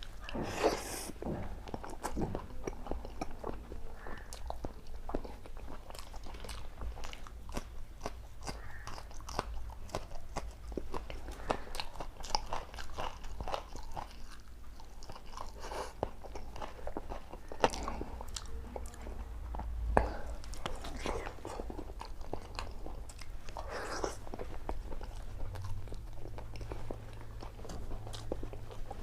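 A person eating close to the microphone: irregular bites and crunching chews with wet mouth sounds, over a low steady hum.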